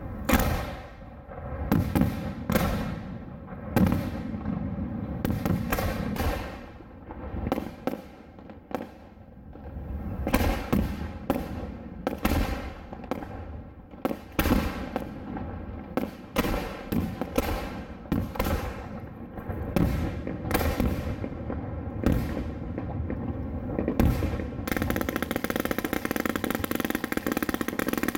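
Fireworks display: aerial shells going off in a series of sharp bangs, one to three a second. About 24 seconds in, a dense, unbroken crackle of rapid reports sets in.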